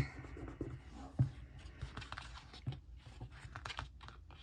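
Soft paper rustling and scattered small clicks and taps as planner stickers are peeled off their backing sheet and pressed onto a paper page.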